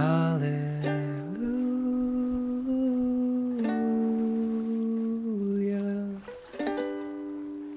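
Closing bars of an acoustic song: plucked strings under a hummed vocal line of long held notes, ending on a last strummed chord that rings out and fades.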